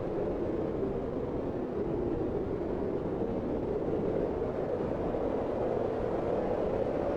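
Blizzard wind blowing steadily, a low, even rushing that swells and eases slowly.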